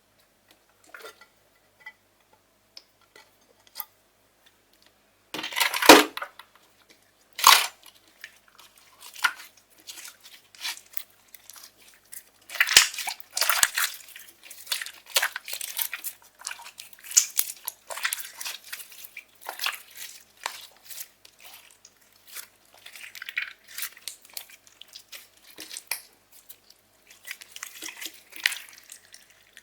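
Slime being kneaded and stretched by hand, giving irregular sticky crackles, squishes and small popping clicks, with two louder crackles about six and seven seconds in.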